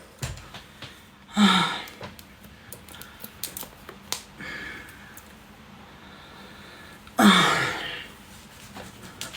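Two short breathy vocal sounds, sighs falling in pitch, about a second and a half in and again about seven seconds in, with scattered small clicks and taps between them.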